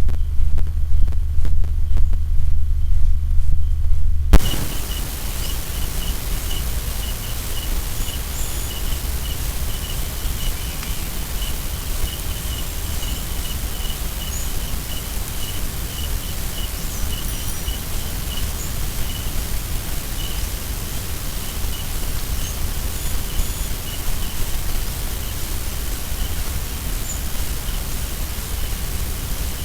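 A loud low rumble that cuts off abruptly about four seconds in. It gives way to steady outdoor hiss with a high chirp repeating about twice a second, like an insect.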